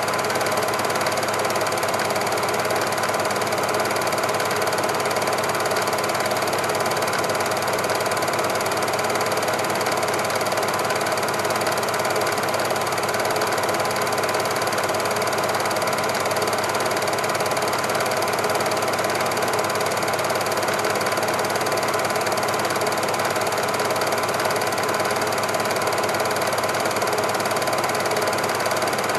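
Super 8 film projector running: a steady mechanical whirr with a faint clatter, unchanging throughout.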